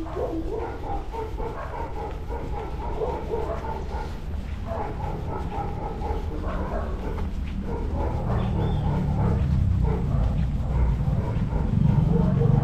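A dog barking and yelping repeatedly, with a low rumble growing louder over the last few seconds.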